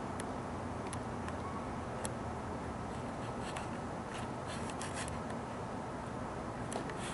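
Steady hiss with scattered faint clicks and rubbing, thickest about four to five seconds in and again near the end: handling noise from a hand-held camera tracking the sky.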